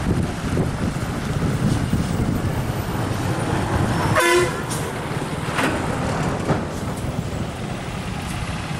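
Water splashing and sloshing from wet nets being worked by men wading in a canal, over a steady low rumble. About four seconds in, a brief horn-like toot sounds once.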